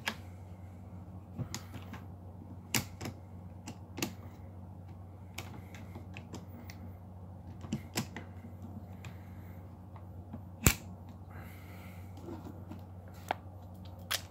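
Scattered sharp metallic clicks and knocks of a Hawk 982 12-gauge pump shotgun's action being handled, the action release pressed and the slide drawn back open, with the loudest click about ten and a half seconds in. A low steady hum runs underneath.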